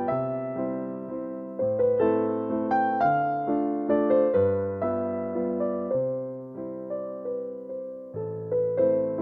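Background music: slow piano, with single notes struck and fading over low held bass notes.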